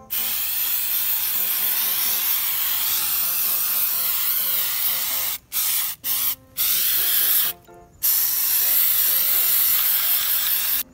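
FW1 waterless wash-wax aerosol can spraying with a loud hiss: one long spray, then a few short bursts with brief stops around the middle, then another long spray.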